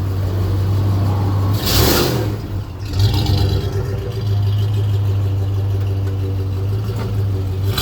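1997 Ford F-150 pickup's engine and exhaust running under acceleration, a steady low drone with a brief rushing surge about two seconds in.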